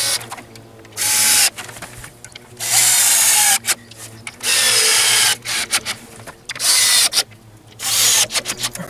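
Cordless drill-driver running in about five short bursts, driving Spax wood screws through a wooden lath into a wall, with the pitch falling during some bursts. Small clicks and knocks come between the bursts.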